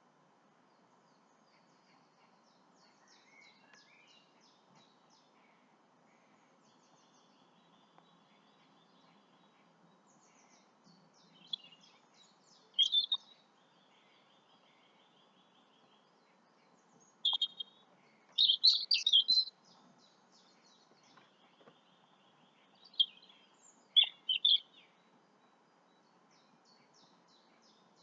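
Songbirds chirping: loud clusters of quick high chirps come in several spells, with fainter twittering trills between them.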